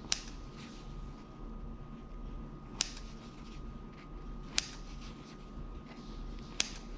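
Kitchen scissors snipping the kitchen twine tied around baked bread rolls: four short, sharp snips a couple of seconds apart.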